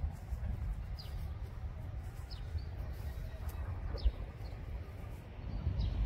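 Birds chirping, with single short falling chirps every second or two, over a steady low rumble. There is one soft thump about four seconds in.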